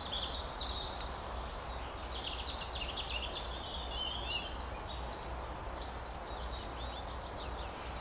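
Small songbirds singing in the woods, a continuous run of quick, high chirps and trills over a steady background hiss.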